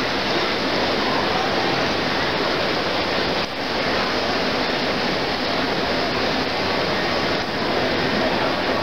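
Steady hubbub of a crowded exhibition hall: many distant voices and footsteps blending into a continuous wash of noise.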